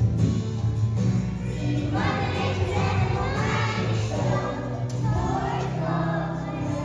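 Music with a group of voices singing over steady low accompaniment.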